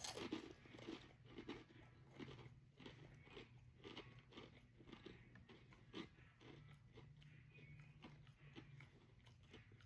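Close-up crunching and chewing of a mouthful of Cheez-It crackers, many short irregular crunches, most in the first few seconds.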